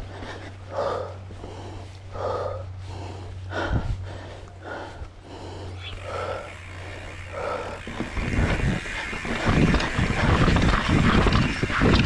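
A mountain biker's heavy breathing, one loud breath about every second and a half as he pedals. From about eight seconds in it is covered by a loud, rough rumble of knobby tyres rattling over the dirt singletrack and wind on the camera microphone as the bike picks up speed.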